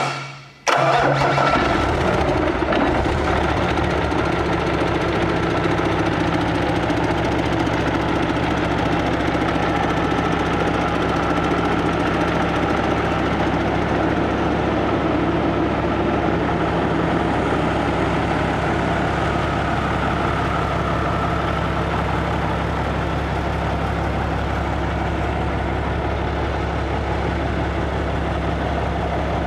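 A rebuilt Cummins ISX 15-litre inline-six diesel on an engine test stand, on its first startup after the rebuild: a brief crank, firing within about a second, then running at a steady idle.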